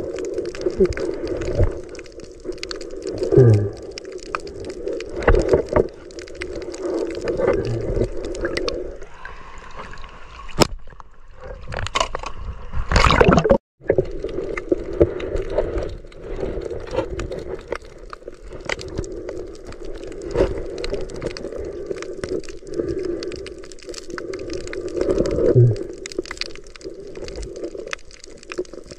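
Muffled underwater sound picked up by a camera in its waterproof housing as a snorkeler swims over a reef: a steady low water hum with scattered clicks and knocks. A little before halfway a rush of noise rises, and the sound cuts out for a moment just after.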